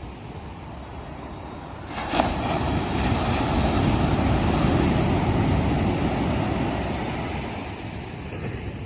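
Ocean waves: a wave breaks sharply about two seconds in, and its wash stays loud for several seconds before fading away.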